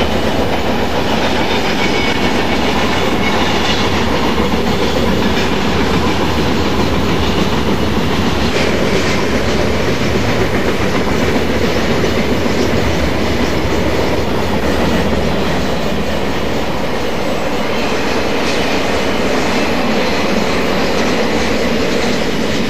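HO scale model freight train rolling past close by, a steady, unbroken noise of the cars' wheels running on the track as boxcars and hoppers go by.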